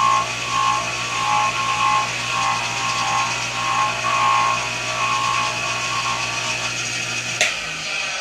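Bench grinder motor running with a steady hum while a brass lamp part is pressed against its spinning polishing wheel, the contact adding a wavering whine. About seven and a half seconds in there is a sharp click, the hum stops and the wheel winds down.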